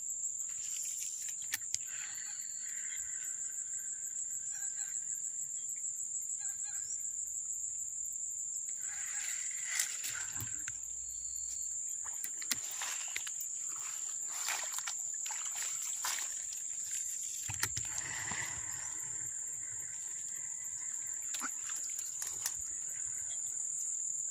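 Steady, high-pitched drone of insects, like crickets, calling in swamp grass, with occasional sharp clicks over it.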